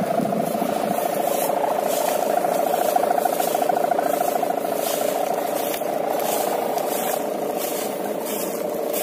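Sowangan kite hummers droning in the wind: a steady buzzing tone with a fast flutter that holds on without a break.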